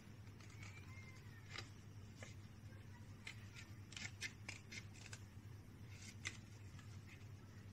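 Small red-handled scissors snipping around a paper cut-out in faint, irregular snips, several in quick succession around the middle, over a low steady hum.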